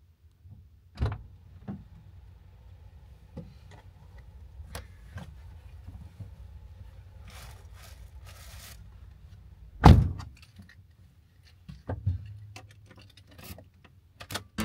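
Someone getting into a Toyota HiAce's driver seat: scattered clicks, knocks and key jangles, then the driver's door shutting with a loud thump about ten seconds in, followed by a couple of smaller knocks.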